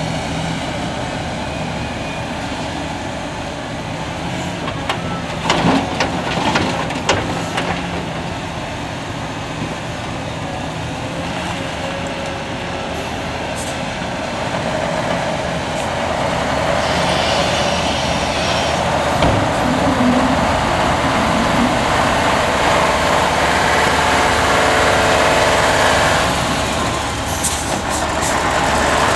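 Heavy diesel engines running as a Liebherr R974B crawler excavator loads a Mercedes-Benz SK dump truck, with a clatter of rock dropping into the steel tipper body about five to seven seconds in. From about the middle on the engine noise grows louder, with a brief hiss, as the loaded truck moves off.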